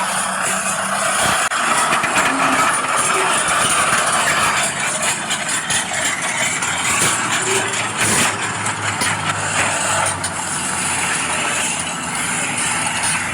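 Steady mechanical running noise from radio-controlled scale construction machines, an excavator and a bulldozer.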